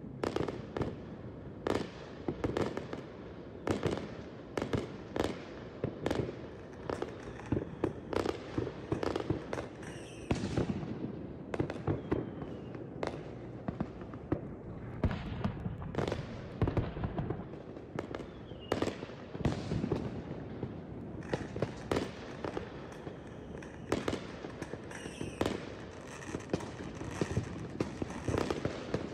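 Consumer fireworks going off in quick, irregular succession: a steady run of bangs and crackling bursts, with a few short whistles among them.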